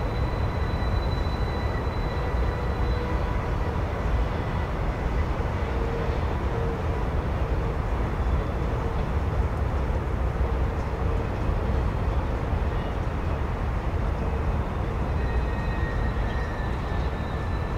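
A freight train rolling across a long stone-arch railroad bridge: a steady, even rumble of the passing cars, with faint thin tones coming and going.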